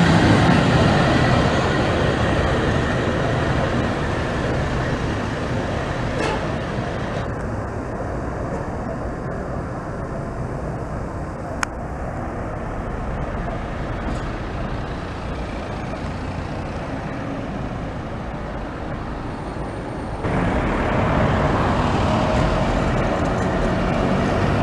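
Vintage electric tram running past close by on its rails, then steady city street traffic. Near the end the traffic gets louder as a van drives by.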